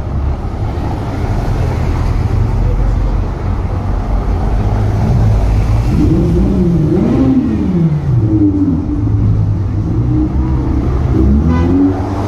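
Sports car engines rumbling at walking pace: a Porsche convertible rolling past, then a Ferrari coming up behind. From about halfway the engine note is revved up and down several times, and there is a shorter rise and fall near the end.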